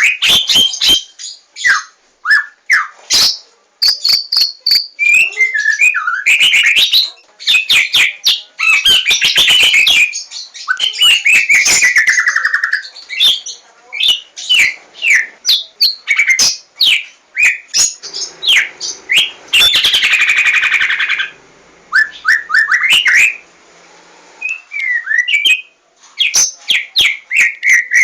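White-rumped shama in full, loud song: a rapid, varied run of clear whistles, chirps, falling slurs and sharp clicking notes, with a buzzy rattling phrase in the middle.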